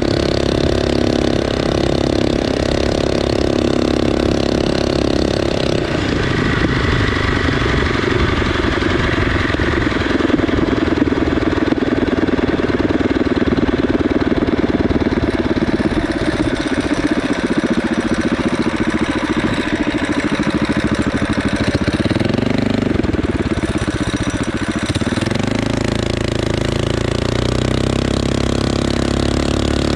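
Predator 212cc single-cylinder four-stroke engine on a motorized bicycle running under way, its note changing about six seconds in as the bike slows. A little past the middle its pitch rises and falls a couple of times before settling to a steadier, lower running note.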